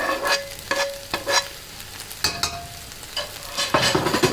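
A metal spatula scraping and knocking against a metal cooking pan while stir-frying fried rice, with about half a dozen irregular clanks that ring briefly, over a steady sizzle of frying.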